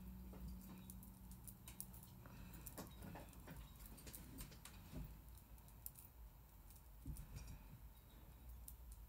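Near silence with faint, irregular soft taps: a makeup sponge dabbing and blending makeup on the face.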